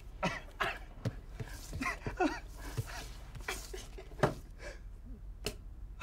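Playing cards slapped down on a wooden table in a series of sharp slaps and clicks, the loudest about four seconds in, with brief vocal sounds around two seconds in.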